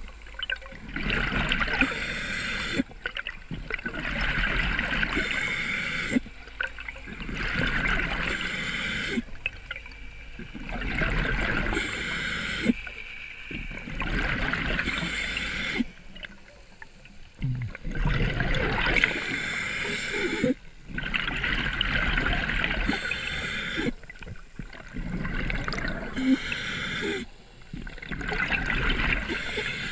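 Scuba diver breathing through a regulator underwater: gurgling rushes of exhaled bubbles every two to three seconds, with short quiet pauses between breaths.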